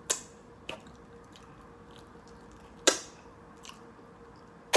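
Close-up eating sounds of chicken wings being chewed, with four sharp wet mouth smacks; the loudest is about three seconds in.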